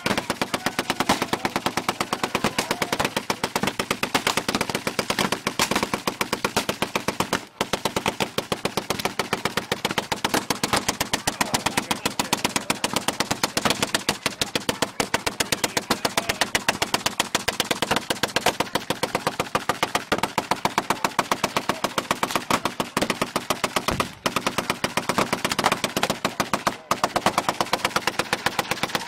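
Hand-cranked Civil War–era Gatling gun firing a long, continuous burst: a rapid, even string of shots, broken by brief pauses about seven seconds in and twice near the end.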